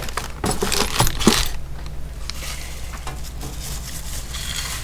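A small plastic bag of metal light-mounting clamps rustling and clinking as it is handled and set down in a cardboard box, a few sharp clicks in the first second and a half. After that only a steady low hum.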